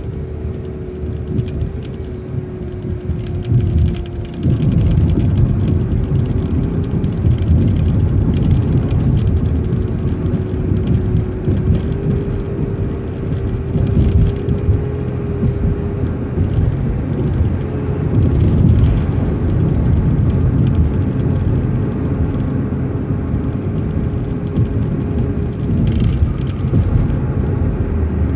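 City transit bus driving, with dense engine and road rumble and a steady whine. The noise is lower for the first few seconds, then louder from about four seconds in.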